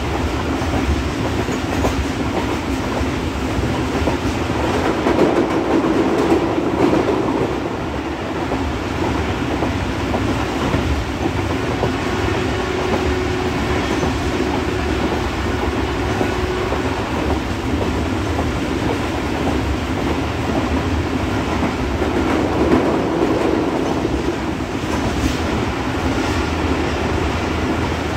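Rehman Baba Express passenger train running at speed, heard from aboard: a steady rumble of wheels on the rails with the clatter of the coaches, swelling slightly a couple of times.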